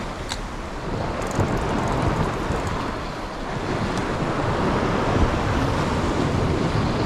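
Sea waves surging and washing over the rocks of the shore, with wind buffeting the microphone in a steady rush.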